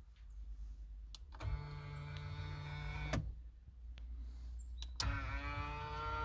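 Electric tilt motor of a Nissan Leaf navigation unit's screen whining as the screen tilts open, then again as it tilts closed. There are two runs of about a second and a half each, each with a click at the start and end.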